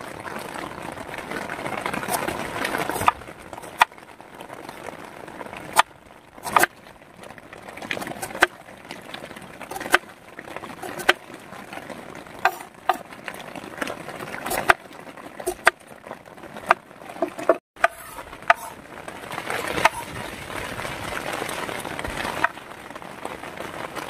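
Kitchen knife chopping onion and tomato on a wooden cutting board: sharp knocks of the blade on the board at irregular spacing, roughly one a second, over a steady hiss of rain.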